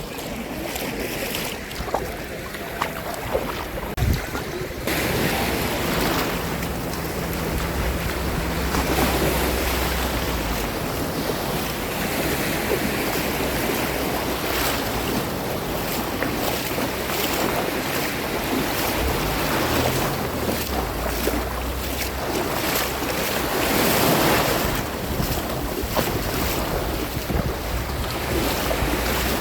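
Sea waves washing and breaking in swells of rising and falling surf, with wind buffeting the microphone into a low rumble. A few sharp knocks early on, the loudest about four seconds in.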